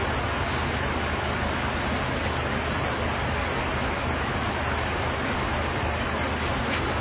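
Steady, even drone of an airliner in flight, heard inside the cabin: a constant rushing noise with a low hum underneath that does not change.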